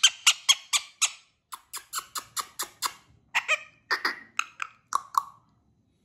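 Indian ringneck parakeet giving a rapid run of short, sharp, high-pitched squawks, about four to five a second. The run pauses briefly twice and stops about five seconds in.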